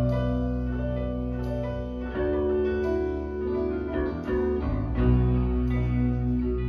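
Music with piano or keyboard and a steady bass line, played back through a Sony STR-DH770 AV receiver and speakers.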